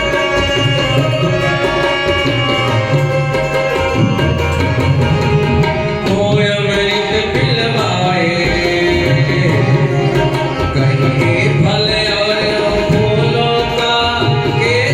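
Indian music with tabla playing a steady rhythm under held melodic tones from an accompanying instrument.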